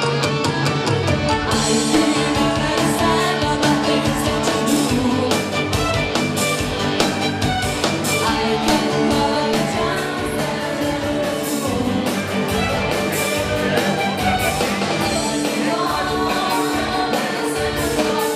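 Live band playing an oldies rock-and-roll song: electric guitar, drums and singing over a steady beat, the full band filling out about a second and a half in.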